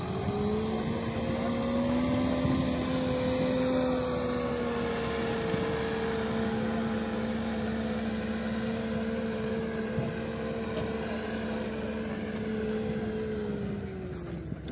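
Tractor engine running steadily, its pitch rising a little in the first seconds and dropping away just before the end.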